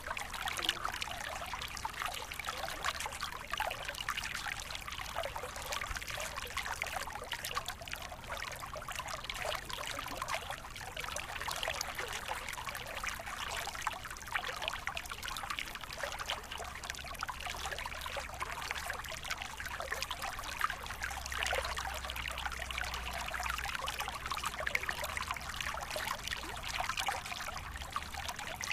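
Waterfall: water pouring and splashing steadily, a continuous rushing hiss with no breaks.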